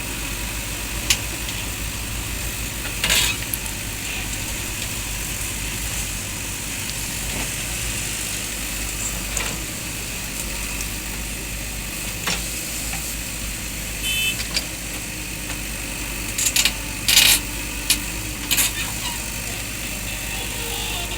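JCB backhoe loader's diesel engine running steadily under a constant hiss, with a few sharp knocks scattered through, the loudest bunched together near the end.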